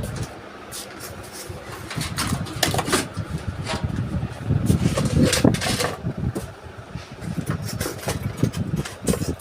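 Irregular clicks, knocks and rustling of computer parts and a PC cabinet being handled, with uneven low rumbling under them.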